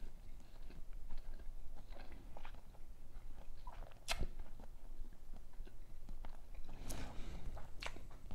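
Close-up mouth sounds of a person eating Dungeness crab: chewing and biting, with scattered sharp clicks and snaps, the loudest about four seconds in and again near the end.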